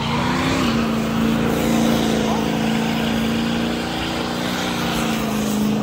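Pickup truck engine held at high, steady revs during a burnout, its pitch stepping up just under a second in and then holding, over the hiss of spinning tyres.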